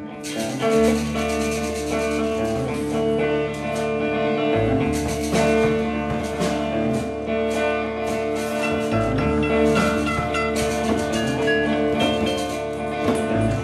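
Music: a guitar playing over low bass notes, with drum hits throughout.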